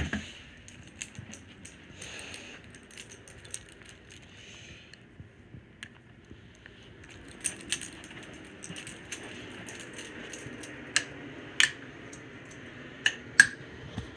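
Metal Zippo lighters clinking and clicking against each other as they are handled, in scattered sharp clicks with a few louder ones in the second half.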